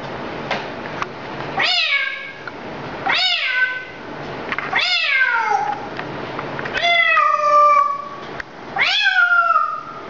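African grey parrot imitating a cat's meow: five drawn-out meows, each sliding down in pitch, about every one and a half to two seconds.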